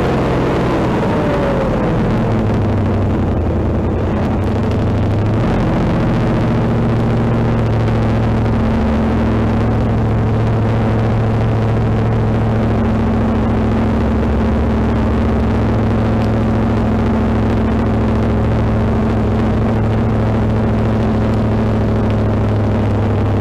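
Onboard sound of a 1972 Shadow MkIII Can-Am race car's engine, falling in pitch as the car slows near the start, then running steadily at low revs as it crawls along.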